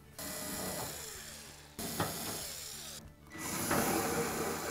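Cordless drill-driver running in short stretches as it backs screws out of the dryer's sheet-metal air inlet duct, with a brief stop about three seconds in.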